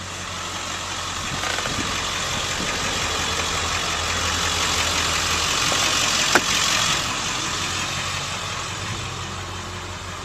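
7.3-litre Power Stroke V8 diesel idling steadily. Over it, a rush of air from the climate-control blower swells over the first seconds and eases off after about seven seconds, with one sharp click just past the middle.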